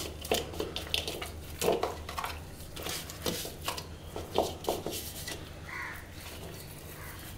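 Hands rubbing ground spices into small whole fish (puti barbs) in a plastic bowl: irregular soft squelches, scrapes and light knocks of fingers and fish against the bowl, over a low steady hum.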